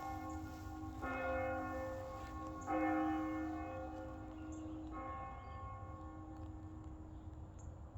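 Bells ringing: three strokes, about a second in, near three seconds (the loudest) and at five seconds, each left to ring and fade slowly. A few faint bird chirps can be heard late on.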